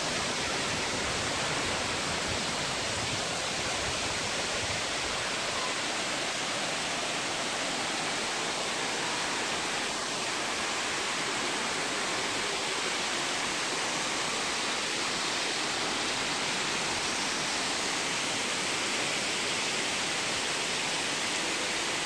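A waterfall: water pouring over rock into a pool, giving a steady, even hiss that does not change.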